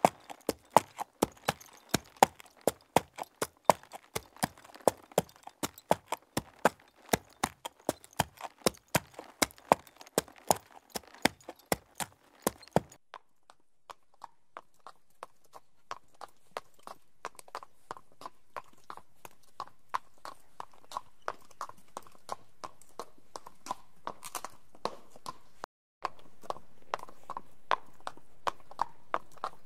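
Horse hooves clip-clopping at a walk, a steady run of about three sharp strikes a second. About halfway through a different recording takes over, with lighter hoof strikes over a hiss that grows steadily louder.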